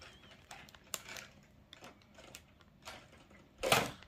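Light, scattered clicks and taps of hands handling plastic Lego bricks on the built castle, with one louder brief noise a little before the end.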